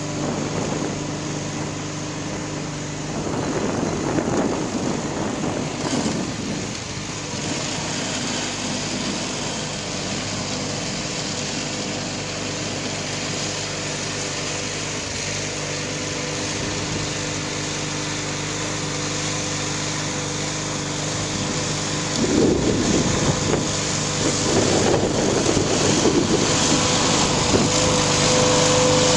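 Backhoe engine running steadily, growing louder and rougher for a few seconds about 3 s in and again from about 22 s on.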